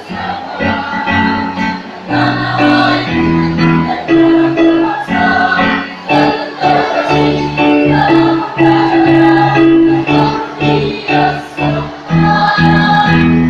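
Choir singing in harmony with instrumental accompaniment, the chords held for about half a second to a second each.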